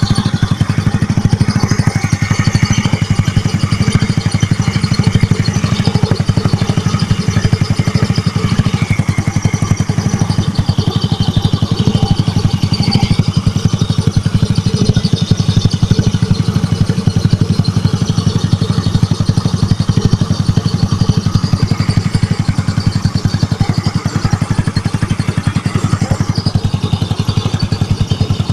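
Motorcycle engine idling steadily, with an unexplained noise in its running that the owner cannot identify and suspects is a problem.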